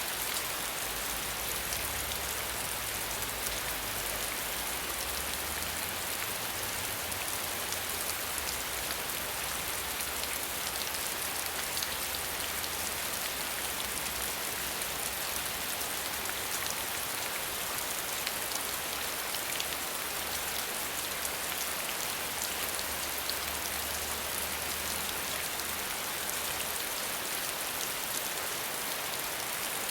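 Steady rain falling, a dense even hiss of countless drops with fine pattering ticks, and no thunder.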